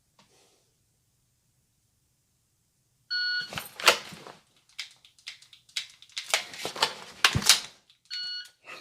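Shot timer beeps to start the drill. Then about five seconds of sharp clicks and clatter follow: the pistol's draw, a Glock 17's dry-fire trigger clicks and a magazine reload. A second, matching beep marks the 5-second par time near the end.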